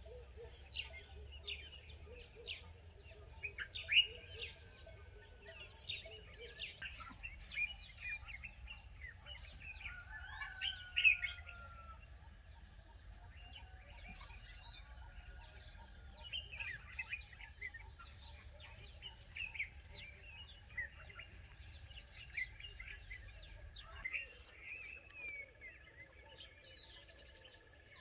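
Several birds chirping and calling in many short notes and quick glides, over a low steady rumble, with a faint steady high note from about halfway through.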